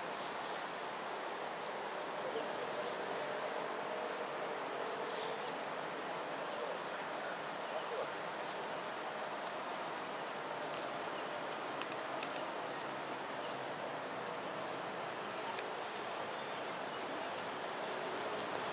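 Steady chorus of insects at dusk, a continuous high-pitched shrill drone over a dense background hum.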